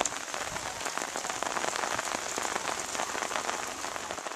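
Steady rain falling on flooded rice paddies, an even hiss made of many small drop impacts on standing water.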